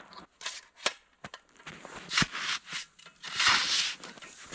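Gear being handled with a few clicks and knocks, then a snow shovel scraping into bitter-cold snow and throwing it aside, in strokes about a second apart from about halfway through.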